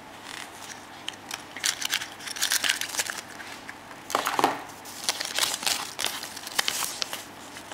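A small plastic wrapper crinkling and crackling as it is handled and turned over, in irregular clusters of crackles.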